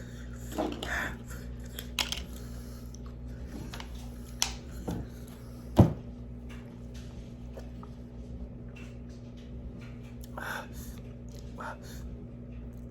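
Steady low room hum broken by scattered small clicks and handling noises, a few brief breaths or mouth sounds, and one sharp knock about six seconds in.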